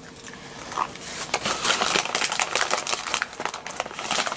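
Jack Russell puppy crunching and chewing a small treat, a dense run of crackly, crinkly clicks starting about a second in.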